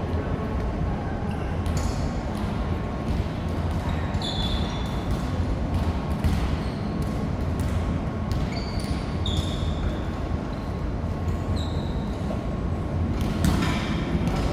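Sneakers squeaking on an indoor court floor during play, several short high squeaks, with scattered sharp knocks of hits and footfalls over a steady low hall rumble.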